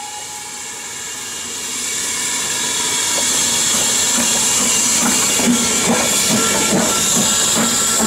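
Steam locomotive BR Standard Class 4MT 4-6-0 No. 75029 passing close at low speed. A steady hiss of steam grows louder, and from about halfway a regular beat of knocks from the working engine comes in, two to three a second.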